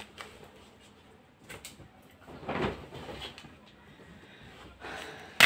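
Clothes being handled and rustled as garments are put down and picked up, with a few light clicks and one sharp knock near the end.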